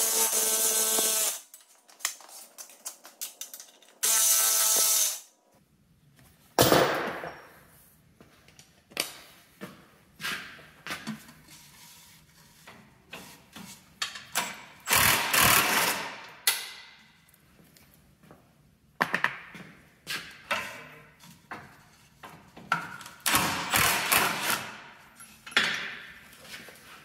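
A Milwaukee Fuel cordless power tool runs twice, about a second each time, at the start and again about four seconds in, spinning out the rear shock absorber's mounting bolts. After that come scattered metal clinks, knocks and rattles of tools and the loosened shock being worked off its mounts.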